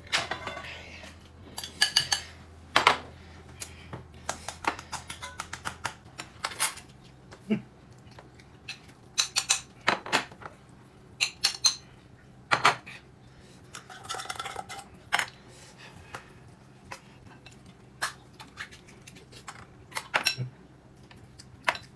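Cutlery clinking against bowls and dishes during a meal: many sharp, irregular clinks, some single and some in quick clusters.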